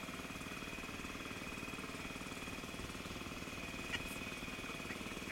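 Ariens snowblower's single-cylinder engine running steadily, with a thin steady high whine over it.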